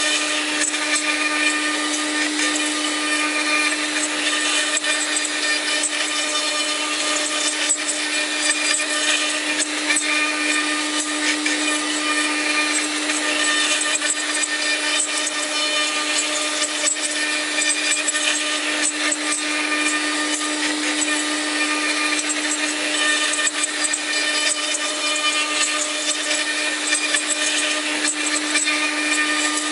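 LH 8101 CNC woodworking machining center running and cutting wood: a steady spindle hum with a dense, even cutting noise on top, unbroken throughout.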